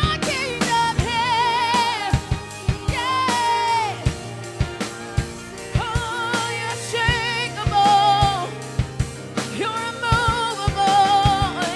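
Live worship band: a singer holding long, wavering notes with vibrato, without clear words, over drum kit hits and a steady bass line.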